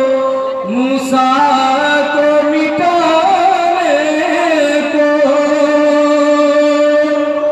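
A man singing a naat solo, holding long drawn-out notes that glide and waver between pitches.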